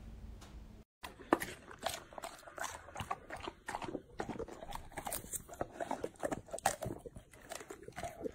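Golden retriever biting and chewing a raw tomato: irregular chewing clicks, several a second, starting about a second in.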